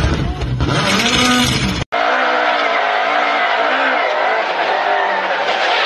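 Rally car engine revving up and down as the car slides through a wet corner. After a sharp cut about two seconds in, a rally car engine runs at high revs, heard from inside the cabin.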